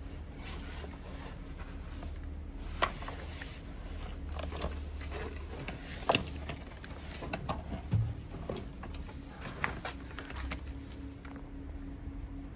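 Plastic interior trim panel being pressed and clipped back onto the car's door pillar: a handful of scattered clicks and knocks, the sharpest about 3 and 6 seconds in, over a low steady hum.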